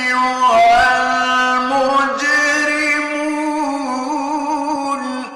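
A male Quran reciter chanting in a slow, ornamented melodic style, drawing out the words 'ayyuha al-mujrimun' over long held notes that bend and waver in pitch. The voice stops near the end and leaves a short echoing fade.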